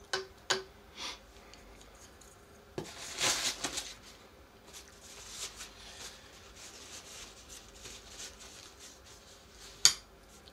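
Wooden chopsticks tapping against a frying pan of poaching cod, a few sharp clicks in the first second. About three seconds in comes a second-long paper crinkle, then a faint crackle of the poaching water, and a single sharp click near the end.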